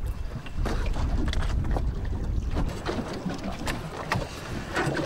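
Wind buffeting the microphone over water lapping against a small boat, with scattered light knocks.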